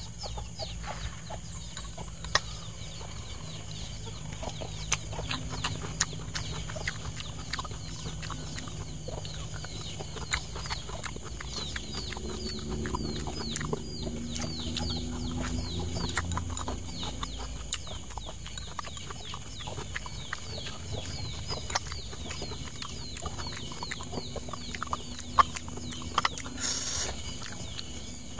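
Eating with chopsticks from a glass bowl: scattered light clicks and chewing, over birds chirping busily in the background.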